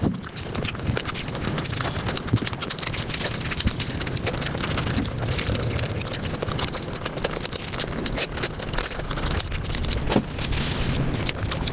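Close-miked eating sounds, chewing and mouth smacks, sped up about five times into a dense, rapid run of clicks.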